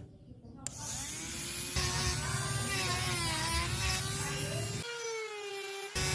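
A small electric rotary carving tool buzzing steadily as it cuts into wood, its pitch wavering slightly with the load, broken by abrupt cuts in the sound.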